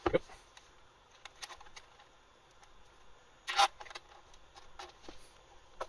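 Handling of a nylon cable tie being threaded through the vent slot of a variable frequency drive and pulled snug: scattered light plastic clicks and rustles, with one short, louder rasp about three and a half seconds in. A sleeve brushing the camera makes a soft bump at the start.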